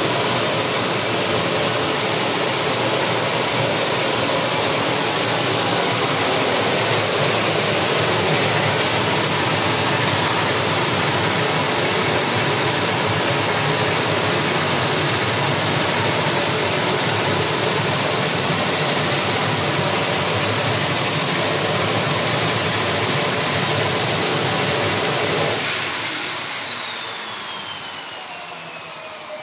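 Thrush S2R-T34 crop duster's Pratt & Whitney PT6A-34 turboprop running steadily, with a high turbine whine over the propeller noise. About 26 seconds in the engine is shut down, and the whine falls in pitch and fades as the turbine spools down.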